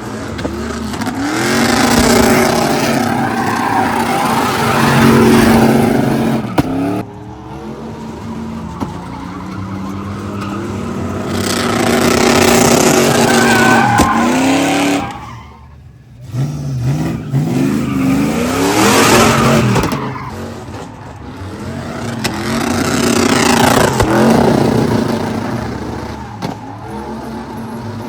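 A car doing a burnout: its engine revs up and down in several long, loud swells while the tyres squeal and skid. The engine drops away sharply about halfway through, then winds back up.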